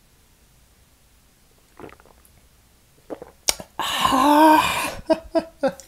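A person sipping sake from a cup, then a loud, hissing, voiced 'kaah' exhale of relish after swallowing, about a second long and falling in pitch, followed by a few quick lip smacks.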